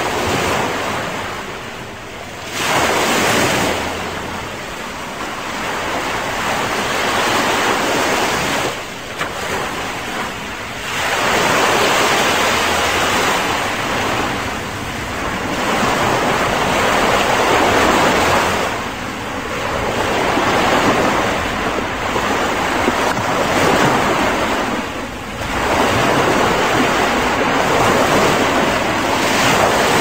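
Ocean surf breaking and washing up a sandy beach, a steady rushing that swells and eases every few seconds as each wave comes in.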